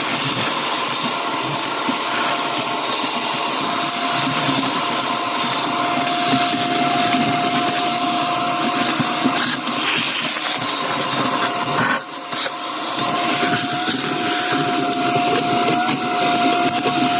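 Shop vacuum running steadily: rushing air over a constant motor whine, with a brief dip about twelve seconds in.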